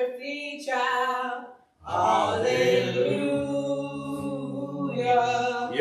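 Church choir singers singing a gospel song in harmony, holding long notes. A short break comes about one and a half seconds in, then the singing resumes fuller, with lower voices joining.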